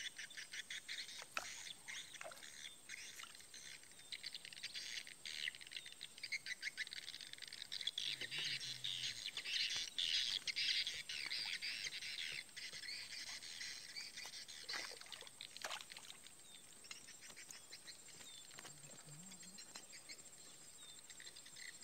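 Small birds chirping in a rapid, dense twitter, loudest about halfway through.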